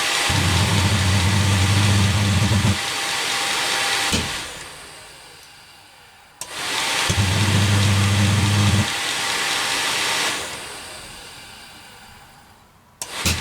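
Eberspacher D1L diesel heater's fan motor started in repeated bursts, three times. Each time it switches on with a low hum that lasts a couple of seconds, then cuts out and winds down slowly over several seconds. The heater is failing to light and keeps flaming out, which the owner puts down to too much fuel.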